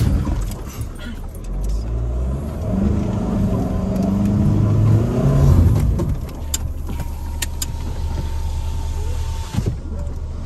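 Jeep Renegade's engine working through soft sand, its pitch rising and falling for the first few seconds, then settling into a steadier drone.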